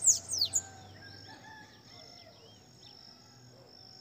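Caged bananaquit singing: a quick run of very high, thin notes ending in a few falling sweeps about half a second in. After that come only faint chirps from other birds and a steady high insect trill.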